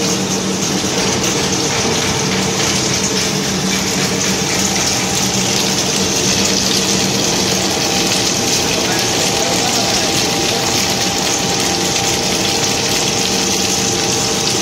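Corn curl extruder line running: a steady, loud machine noise from its geared electric motors and extruder, with a constant hum under a hissing whir.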